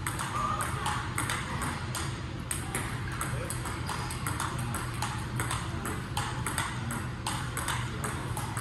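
Table tennis rally: a celluloid-type ball struck back and forth between rubber paddles and bouncing on the table, a quick, even run of sharp clicks. A steady low hum runs underneath.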